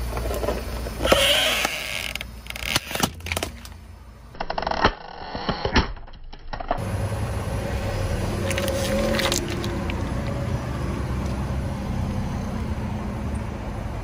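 Plastic skull mask cracking and crunching in a series of sharp snaps under a car tyre. After a cut, the car runs steadily as its tyre rolls over a toy severed hand in a plastic tray, with a few crackles as the tray gives way.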